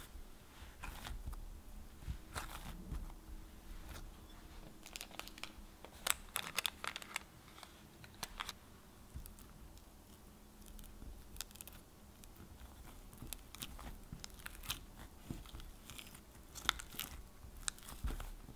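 Hands kneading bread dough in a glass bowl, working butter into it: irregular soft clicks and squishes of the dough being squeezed and pressed, coming thickest about six seconds in and again near the end.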